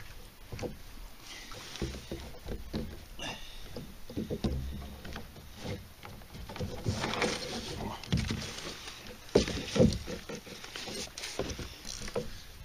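Irregular knocks, taps and rustling from a fish being unhooked and handled on a plastic sit-on-top kayak. The handling gets louder about seven to ten seconds in, with a few sharper knocks.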